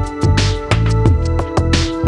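Background music: an electronic track with a steady beat and sustained notes.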